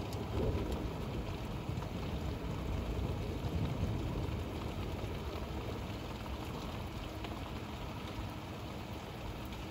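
Steady rain falling, with a few sharp drips and a low rumble underneath.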